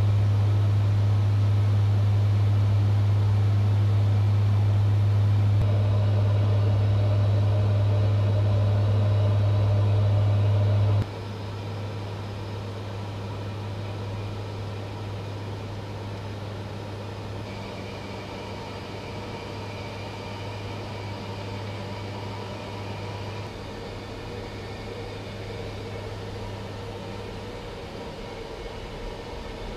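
Steady in-flight drone of a turboprop transport aircraft's engines and propellers, heard inside the cockpit. A strong low hum carries through, and the sound drops sharply in level about eleven seconds in, then holds steady.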